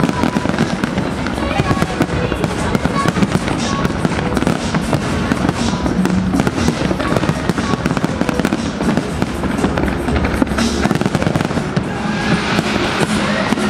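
Large fireworks display at full intensity: many shells bursting in quick succession, a continuous barrage of bangs and crackle.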